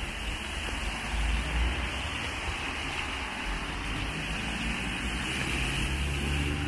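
Steady hiss of rain falling on a wet city street over a low rumble; a low hum comes in near the end.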